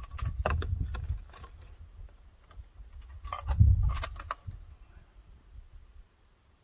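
Metallic clicks and clatter of a 6.5 Creedmoor bolt-action rifle's bolt being worked between shots, in two bursts: one in the first second, and a second about three and a half seconds in. A low rumble underneath fades out near the end.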